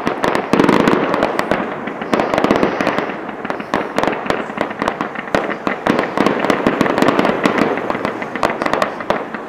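Fireworks display: aerial shells bursting into crackling stars, a dense run of many small pops with no let-up. The loudest stretch starts about half a second in.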